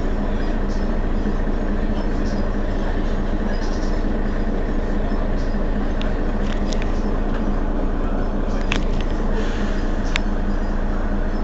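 Mercedes-Benz Citaro Facelift city bus engine idling steadily while the bus stands at a stop, a constant low hum with a steady tone. A few short clicks are heard between about six and ten seconds in.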